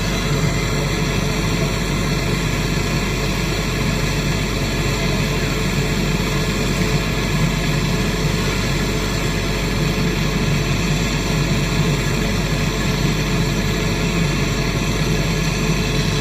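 A steady machine drone that holds unchanged throughout, with a strong low hum and a few steady tones above it.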